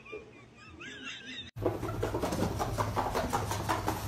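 A corgi whining in faint rising-and-falling whimpers. About a second and a half in, a sudden cut brings a louder, dense crackling and clattering noise over a steady low hum.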